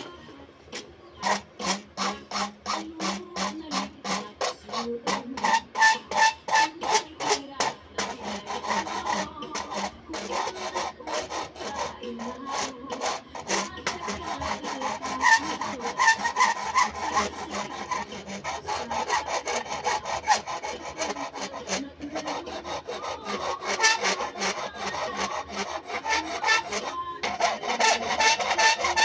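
Hand file rasping in quick back-and-forth strokes on a jungle bolo at its wooden handle, shaping the handle fitting. The strokes come short and regular at first, then turn into longer, denser rasping.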